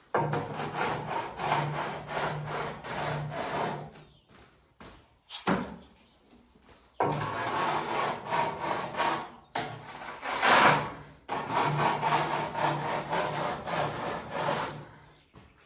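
A mason's straightedge being worked back and forth across fresh mortar render on a wall, a rasping scrape in quick sawing strokes. It comes in three long passes with short pauses between.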